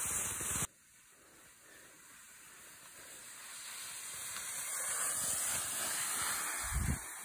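Skis sliding over snow: a hiss that drops off abruptly less than a second in, then slowly swells and fades again, with a low thump near the end.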